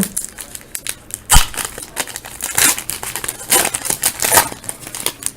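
Hockey trading-card pack wrapper being torn open and crinkled by hand, in irregular rustling bursts, with one sharp knock about a second and a half in.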